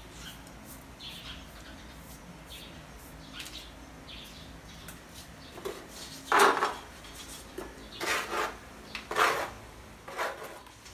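Four short, loud scraping strokes of metal on a hard, gritty surface, beginning about six seconds in; the first is the loudest. Faint high chirps sound before them.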